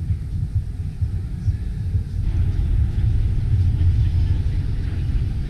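Low, rumbling background noise of a large exhibition hall, without any clear engine note, getting somewhat louder about two seconds in.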